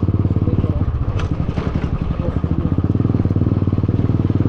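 Motorcycle exhaust running loud while riding, an even rapid beat of firing pulses with a brief easing about a second in before it steadies again. The silencer is very loud.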